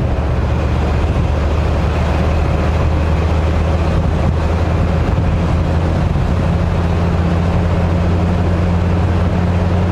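1967 Ford F250 ramp truck heard from inside the cab while driving up to highway speed: a steady low drone of engine and exhaust over road noise.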